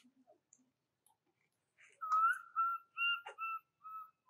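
Baby macaque crying for its mother: a run of five short, high, whistle-like calls starting about halfway in, the first one rising and the longest.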